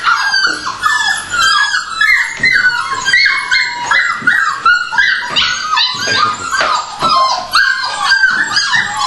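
Several puppies whining and yipping non-stop in overlapping high-pitched cries, each falling in pitch, several a second: hungry puppies begging to be fed.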